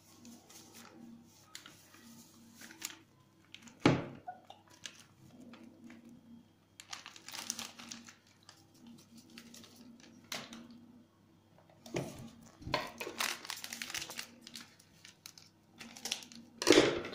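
Plastic powder sachets crinkling and rustling as they are handled and emptied, in scattered bursts with a sharp click about four seconds in. Near the end a louder crinkle as a sachet is cut open with scissors.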